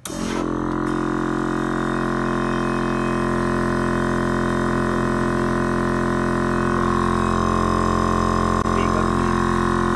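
Electric air-suspension compressor switching on abruptly and running with a steady, loud drone inside the pickup's cab, its pitch shifting slightly about seven seconds in. It is refilling the system's air tank after the rear has been raised, and its noise is described as a bit annoying.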